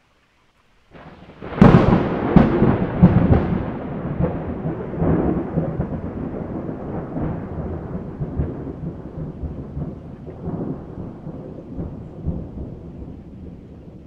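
A thunderclap during a rainstorm: it bursts in about a second in with several sharp cracks over the next two seconds, then a long low rumble that slowly fades, with rain.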